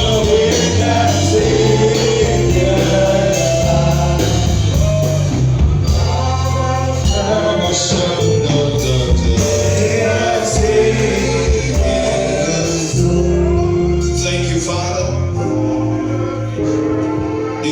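Gospel music: a choir singing over a band with a steady bass line and percussion.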